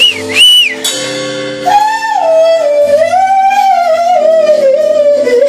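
Live blues-rock band music. A male singer holds a long, high wordless wailing note with vibrato that slowly bends downward, over held keyboard chords. Two short, high sliding cries come just before it, near the start.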